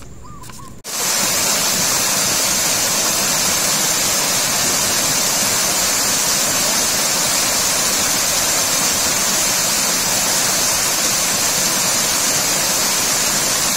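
Small waterfall cascading over rocky ledges: a steady, loud rush of falling water that starts abruptly about a second in.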